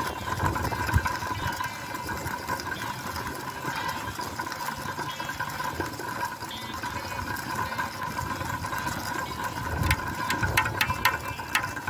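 Dual counter-rotating whirligig with DVD and CD disc blades whirring steadily in gusty wind, with wind buffeting the microphone. Near the end comes a quick run of sharp ticks: the flexing discs clipping the blades of the other rotor.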